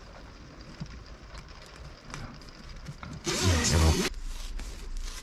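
Faint handling sounds and small clicks as parts are fitted by hand, under a steady low hum. A short vocal sound, the loudest thing, comes a little past three seconds in.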